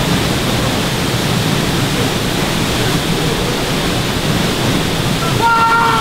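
Waterfall rushing steadily over rocks into a pool. A voice calls out briefly near the end.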